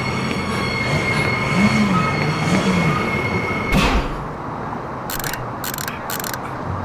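A San Francisco cable car rolling on its rails, with a steady high wheel squeal over the rumble. About four seconds in, the squeal stops with a sudden thump, followed by a few short hissing rustles.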